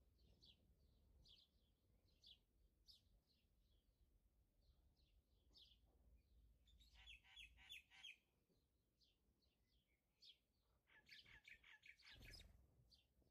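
Faint birdsong: scattered short high chirps, with busier trilling bursts about seven seconds in and again near the end. A soft knock comes near the end.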